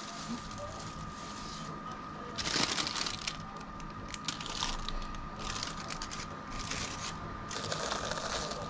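A thin plastic bag crinkling and rustling in irregular bursts as a croissant is handled and pulled out of it. Near the end, kitchen scissors start cutting through the croissant's flaky crust.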